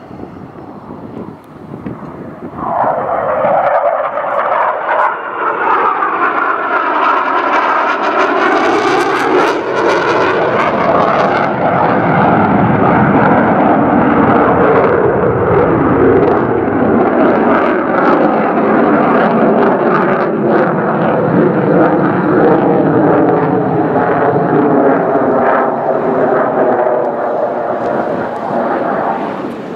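F/A-18F Super Hornet's twin General Electric F414 turbofan engines as the jet passes low and climbs overhead: loud jet noise builds about three seconds in and holds, with a sweeping, phasing tone as it goes by, then eases slightly near the end.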